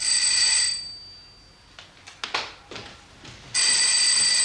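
Electric doorbell ringing twice: a short ring at the start and a longer ring about three and a half seconds later, a bright, steady, high-pitched bell tone. A few faint knocks or steps are heard between the rings.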